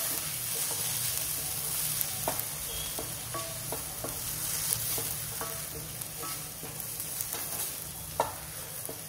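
Chopped onions, ginger and garlic sizzling in hot oil in a frying pan as ground spices are stirred in, the stirring utensil scraping and clicking against the pan now and then, with one sharper knock about eight seconds in.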